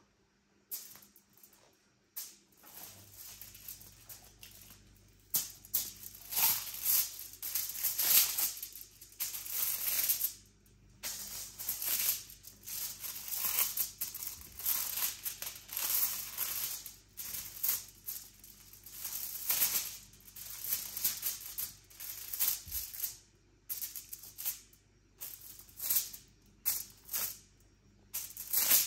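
Aluminium foil crinkling and crackling under bare feet stepping on it, in a rhythm of about one crunch a second. It is faint and sparse for the first few seconds, then louder and regular.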